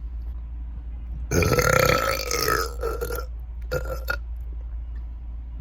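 A woman burping loudly: one long, drawn-out burp that wavers in pitch, then two short ones.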